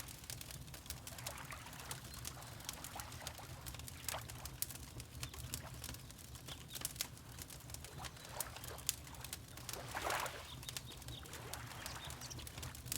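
Wood fire crackling with frequent small pops over a low steady rumble, mixed with water lapping in soft swells every few seconds, the biggest about ten seconds in.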